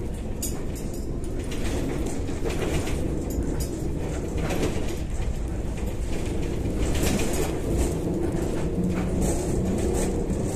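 Kyiv-12.03 trolleybus riding at speed, heard from inside the passenger cabin: a steady running and road rumble, with a low motor hum coming in near the end.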